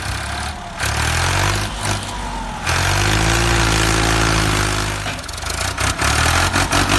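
A vehicle engine running and revving, its pitch rising and falling back in the middle, with a loud rushing noise over it.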